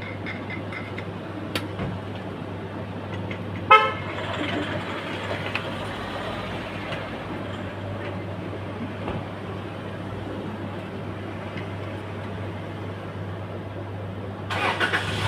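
Outdoor traffic background with a steady low hum, broken by one short vehicle horn toot about four seconds in. A louder burst of hissing noise starts near the end.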